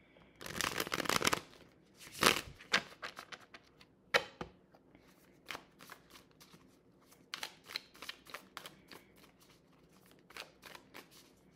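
Deck of tarot cards being shuffled by hand: a dense fluttering run of cards about half a second in, then irregular snaps and light clicks of cards sliding over one another as the shuffling goes on.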